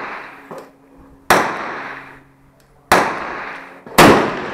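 SKS semi-automatic rifle (7.62×39 mm) firing three shots, the first two about a second and a half apart and the third about a second later, each report followed by an echoing decay. A fainter shot sounds about half a second in.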